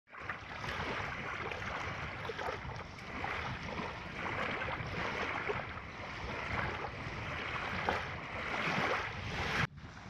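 Small waves washing and lapping over a shallow sandy shore, with wind rumbling on the microphone. The sound cuts off abruptly just before the end.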